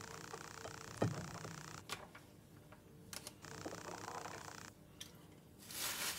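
Faint taps and clicks of a phone being handled, with a sharp click about a second in, stretches of hiss that switch on and off, and a louder burst of hiss near the end.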